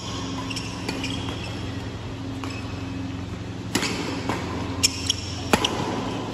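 Badminton rally: several sharp cracks of rackets hitting the shuttlecock, the strikes closest together and loudest near the end, with brief squeaks of sports shoes on the court floor over a steady low hum.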